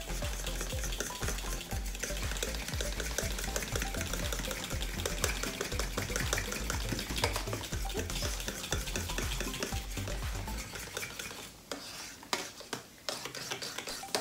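Wire whisk beating custard in a stainless steel bowl, rapid scraping and clicking strokes against the metal. The strokes thin out and slow about eleven seconds in.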